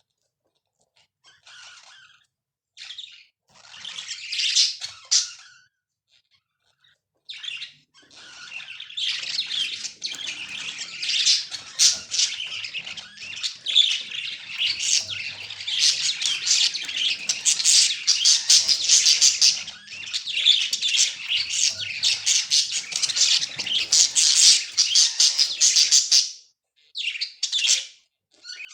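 Budgerigar calling: a few short, high chirps, then a long run of rapid, busy warbling chatter that stops a couple of seconds before the end, followed by another brief chirp.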